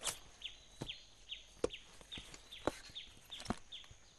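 Faint outdoor nature ambience: short chirps that fall in pitch repeat two or three times a second over a steady high hum, and stop near the end. About five sharp clicks are scattered through it.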